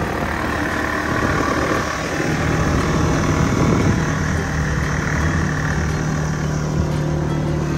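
Quad bike engine running while riding across rough grass; the engine note settles into a steady hum about two seconds in.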